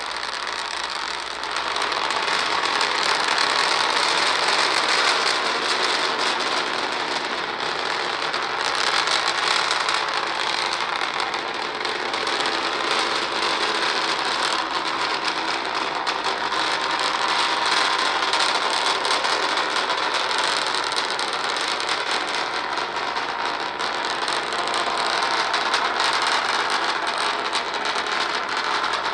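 Starship SN9's Raptor rocket engines firing during powered ascent: a steady, noisy roar, a little quieter for the first second and a half.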